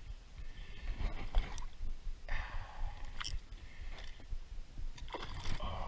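Splashing and gurgling water from a hooked bass thrashing at the surface as it is reeled in to the boat, with the spinning reel being wound and a few knocks from handling the rod. A steady low rumble runs underneath.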